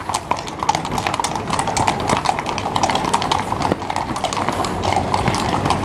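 Hooves of a troop of cavalry horses clip-clopping at a walk on cobblestones, many hooves striking out of step in a dense, irregular clatter.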